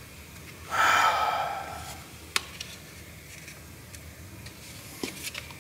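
A man's long exasperated sigh about a second in, followed by a single sharp click and a few faint clicks.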